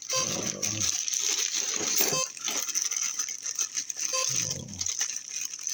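RC radio gear beeping during binding to the HobbyZone AeroScout: short, evenly spaced beeps about every two seconds. Clicks and small rattles of handling sound between them.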